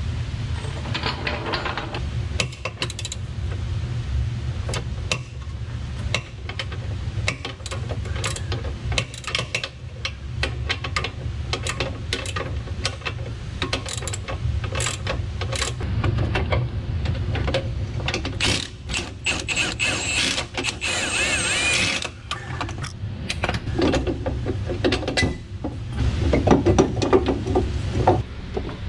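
Hand ratchet clicking as suspension bolts are worked loose, with clinks of tools and metal parts; a steady low hum sits underneath.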